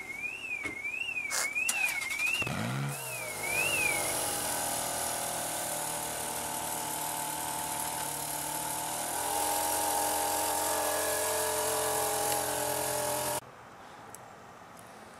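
A supercar engine revs up about two and a half seconds in, then holds a steady high note with a further step up in revs, before cutting off abruptly near the end. Over the first four seconds a warbling electronic tone, like a car alarm, rises and falls about twice a second.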